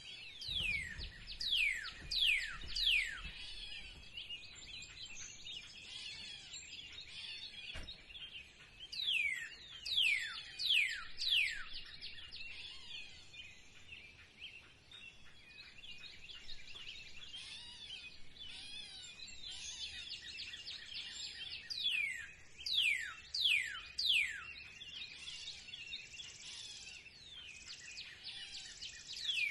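Spring birdsong: one bird sings a quick run of four or five sharp whistles, each falling steeply in pitch, repeated three times about ten seconds apart. Other birds chirp steadily in the background.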